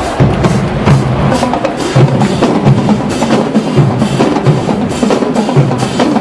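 HBCU marching band drumline playing a fast, driving beat, with bass drums pounding and snares and sharp woodblock-like clicks over a pulsing low line.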